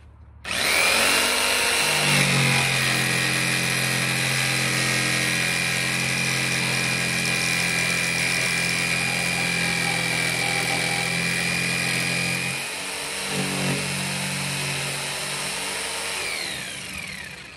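Jigsaw cutting a curved hole through a narrowboat's steel roof plate. The motor starts about half a second in and runs steadily with a high whine, dips briefly about two-thirds of the way through, then winds down with a falling pitch and stops near the end.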